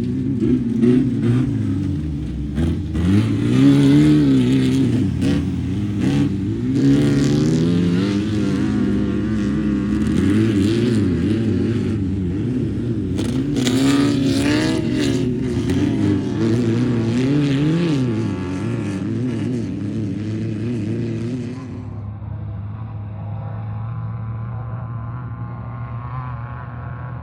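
Off-road race vehicle's engine revving, its pitch swinging up and down again and again, with a rushing noise above it. About three-quarters of the way through it drops to a quieter, steadier, duller running.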